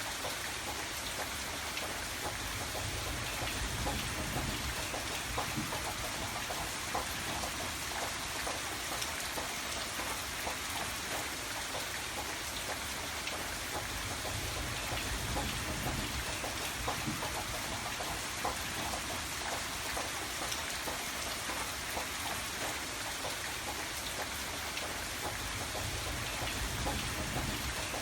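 Steady rain, with many individual drops ticking on a hard surface over a dense hiss, and a low rumble underneath that swells and fades every few seconds.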